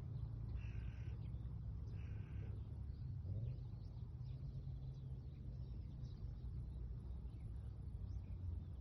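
Toyota 86's 2.0-litre flat-four idling quietly through an HKS R-SPEC exhaust manifold and HKS Hi-Power Spec L muffler, a steady low hum. A bird calls a few times in the first couple of seconds.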